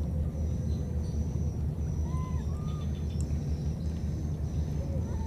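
A steady low rumble, with a faint high whine above it. About two seconds in come two faint short rising-and-falling calls from a baby monkey.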